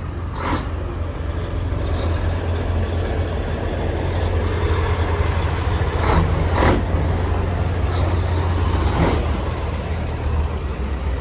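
Diesel engine of a Mack semi truck rumbling steadily at close range as the truck drives by, with a few brief sharp sounds over the rumble.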